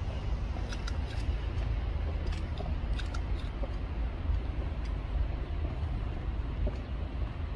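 Steady low rumble of outdoor background noise, with a few faint clicks in the first few seconds.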